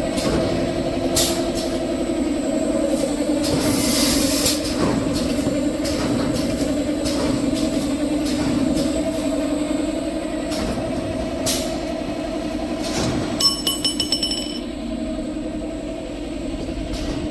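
Automatic kitchen-towel paper log saw cutting machine running with a steady hum, broken by a few short hisses and a quick run of clicks about two-thirds of the way through.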